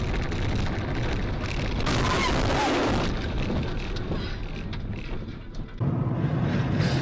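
Road and engine noise inside a moving car, heard through a dashcam's microphone as a dense rumble. About two seconds in a louder hiss lasts for roughly a second. Near the end the sound switches abruptly to a lower, steadier engine hum.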